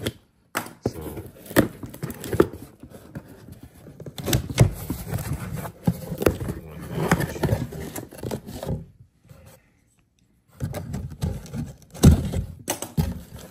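A small cardboard shipping box being opened and its contents handled: scraping, tearing and crinkling of packaging with irregular knocks and clicks, broken by about a second of silence roughly two-thirds of the way through.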